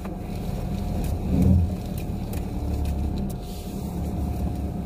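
Ram ProMaster van's engine running, heard from inside the cabin as a low steady rumble, swelling briefly about a second and a half in.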